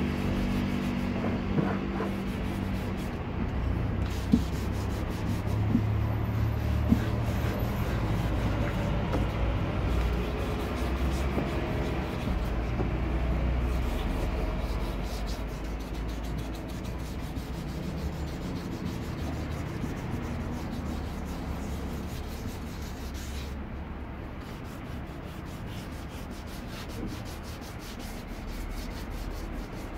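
Sandpaper rubbing by hand over the wet plastic shell of a motorcycle top case: wet-sanding the scratched surface. A few sharp clicks come in the first several seconds, and the rubbing gets quieter about halfway through.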